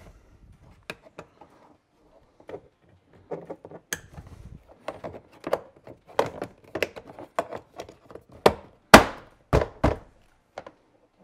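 Hard plastic clicks and knocks from a Toyota Tacoma's interior door trim panel as the window switch is snapped back into the armrest and the panel is worked onto its clips. The knocks come in a busy run and end in two loud thunks about nine seconds in.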